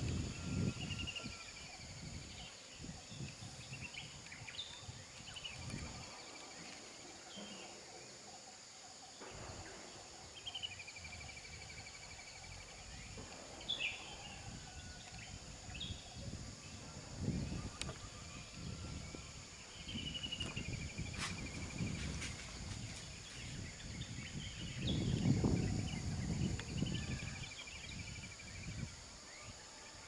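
Birds calling with repeated chirps and short trills over a steady high insect drone. Occasional low rumbling swells come and go, the strongest about 25 seconds in.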